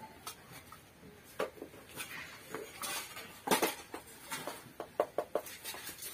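Stainless steel plates, a steel bowl and a serving spoon clinking and scraping as curry is served and rice is eaten by hand: scattered clinks, the loudest about three and a half seconds in and a quick run of them about five seconds in.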